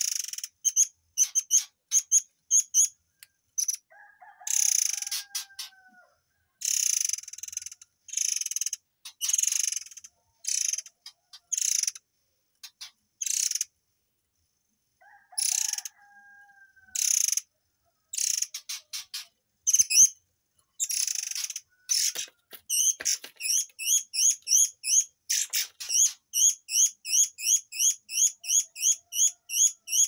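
Caged 'air mancur' (murai air) songbird singing loud, high-pitched phrases with short pauses between them, some harsh and some with lower falling notes. In the last third it breaks into a rapid run of sharp repeated chirps, about two or three a second: the fast 'tembakan' run that keepers play to train murai batu.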